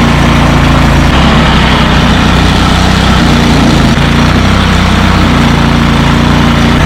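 A large engine running steadily at a constant, low pitch, with a slight shift in its note about a second in.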